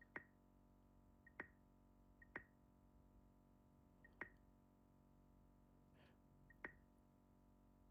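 Five short, quiet clicks at uneven intervals, most with a faint tick just before, from menu navigation on the AR glasses while scrolling through a list.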